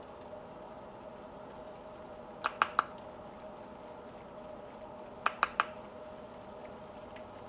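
A spoon tapped against the rim of a skillet, three quick taps twice, about three seconds apart, as skimmed foam is knocked off it. Under the taps runs a steady low hum.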